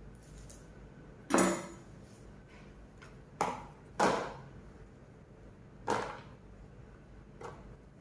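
Kitchen knife knocking on a wooden cutting board as long beans are sliced: five separate sharp knocks, irregularly spaced, the loudest a little over a second in and at about four seconds.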